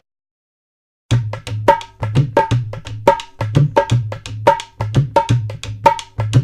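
Short percussive music sound effect: a fast drum beat of about five strokes a second, with a bright pitched ping on every few strokes. It starts abruptly after about a second of silence.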